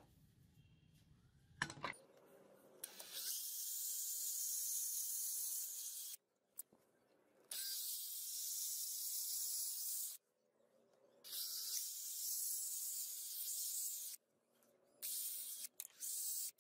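Cordless drill boring into a hardwood block, in about four runs of roughly three seconds, each a steady high hiss. The runs are separated by short pauses, and the last two are brief. A little quiet handling comes before the first run.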